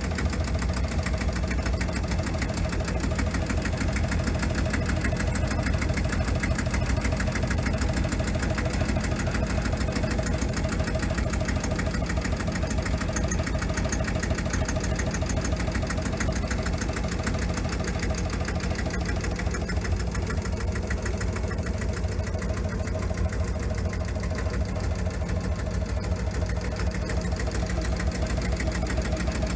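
Inboard marine engine idling steadily in its engine compartment, with a rapid, even beat that holds unchanged.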